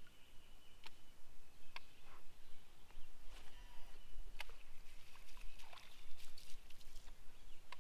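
Open-water ambience on a fishing boat: light water sounds with sharp clicks about a second apart at first, then scattered, and a cluster of small ticks and splashy noise near the end.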